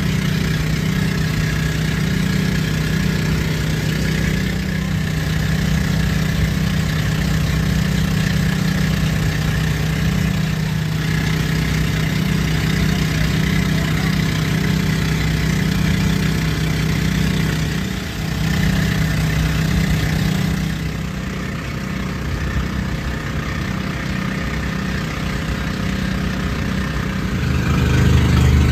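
Engine of a motorized outrigger boat (bangka) running steadily under way. Near the end its note drops lower and gets louder.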